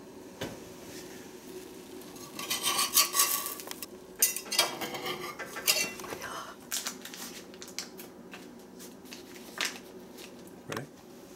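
Metal utensil clinking and scraping against a cast iron skillet and a ceramic plate as the cornbread is cut and served. A busy stretch of clatter comes about two to six seconds in, followed by a few single clinks.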